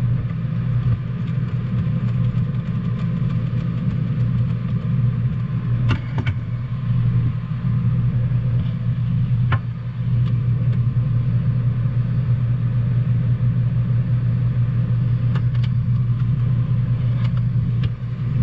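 A steady low machine hum, with a few light clicks and taps from small parts being handled.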